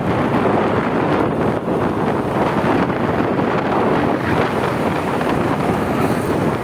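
Wind buffeting the microphone, a steady rushing noise, with road traffic running underneath it.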